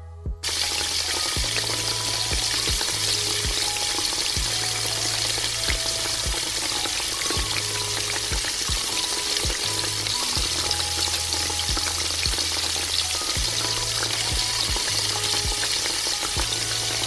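Hot oil sizzling and crackling as in deep frying, a dense steady crackle that starts about half a second in. Soft music plays underneath.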